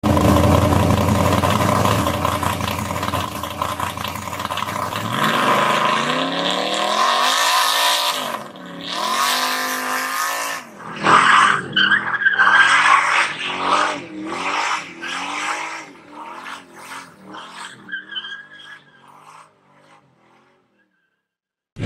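Race car engine running loud and steady at high revs, then revving up and down, then a quick series of short revs that grow fainter and die away.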